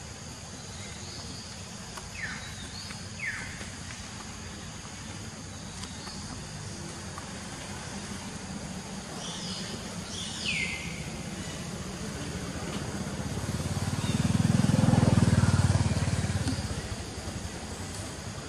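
A motor vehicle passes. Its low engine sound swells to the loudest point about two-thirds of the way through, then fades, over a steady low hum. A few short, high chirps fall in pitch about two, three and ten seconds in.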